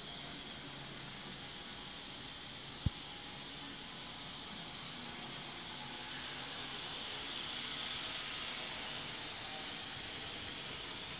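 Steady hiss of background room noise, swelling slightly past the middle, with one short click about three seconds in.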